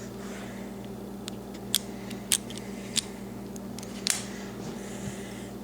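Small sharp metallic clicks and taps, about five of them a second or so apart, as the trigger-assembly pin of a Browning BPS pump shotgun is worked out with a tool. A steady low hum runs underneath.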